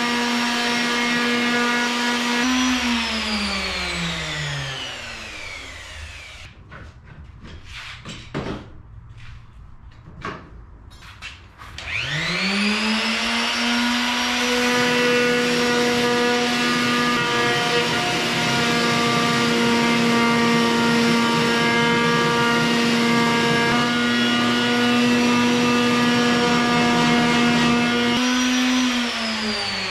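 Handheld corded power tool cutting an aluminium aircraft wing spar to length. It runs at a steady high pitch and winds down early on, then a few light knocks come during a quiet spell. It spins up again about twelve seconds in, runs steadily, and winds down near the end.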